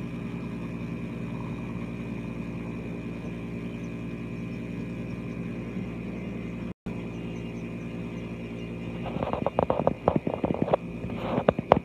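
Distant PZL W-3 Sokol twin-turbine helicopter in flight, a steady drone of engines and rotor that cuts out for an instant a little past halfway. Near the end, a run of sharp, irregular crackles comes in, louder than the drone.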